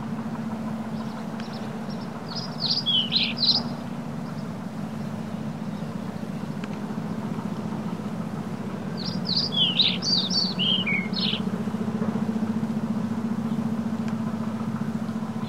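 Small parrots in an aviary chirping in two short bursts of quick chirps, about seven seconds apart, over a steady low hum.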